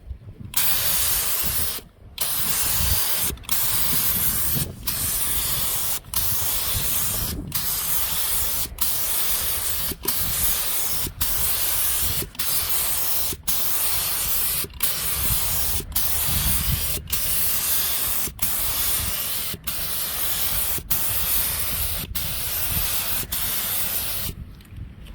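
Compressed-air paint spray gun hissing in about nineteen short passes of a little over a second each, the trigger briefly released between strokes, as paint is sprayed onto the car body. It stops about a second before the end.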